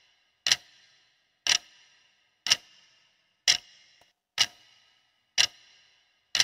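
Clock-tick sound effect marking a quiz countdown timer: one sharp tick each second, each with a short ringing tail.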